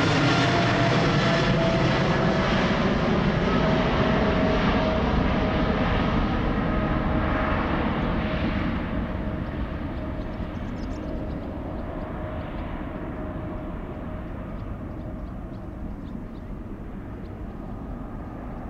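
Boeing 777-300ER's twin GE90 turbofans at climb power, passing overhead and going away. A steady jet rumble carries a whining fan tone that slides slightly down in pitch. The sound grows duller and fainter after about eight seconds as the high end drops away.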